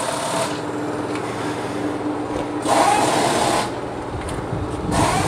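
A steady mechanical hum from a running motor, with a louder noisy burst about halfway through.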